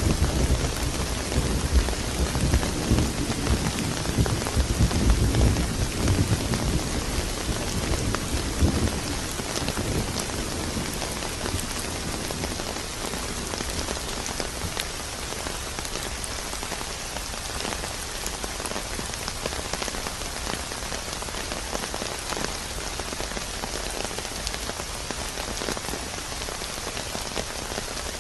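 Steady heavy rain, with a low rumble of thunder that fades away about nine seconds in.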